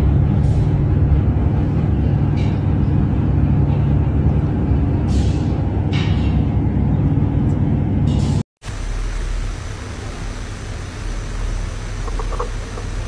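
Kitten purring close to the microphone: a steady low rumble. About eight and a half seconds in it cuts off and a quieter low rumble follows.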